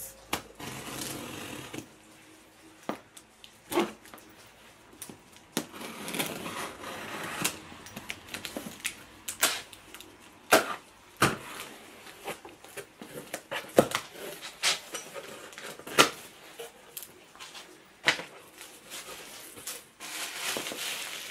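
A cardboard parcel being cut open and unpacked: packing tape and cardboard scraping and tearing in a few short stretches, with scattered sharp clicks and knocks.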